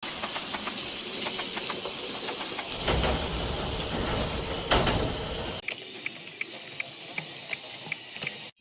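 Toy Plarail train running on plastic track. A steady hissing whir is louder for about the first five and a half seconds. It then gives way to even clicks about three times a second as the wheels pass over the rail joints.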